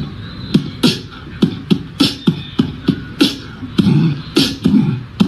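Background music: a beatboxed rhythm of kick-drum and snare-like mouth sounds, about two to three hits a second.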